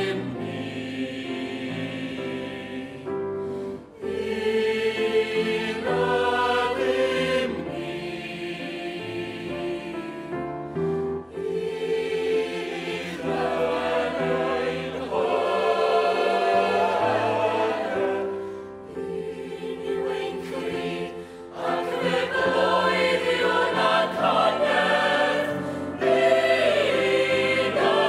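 Mixed choir of women's and men's voices singing in Welsh in sustained chords, with a few short breaks between phrases.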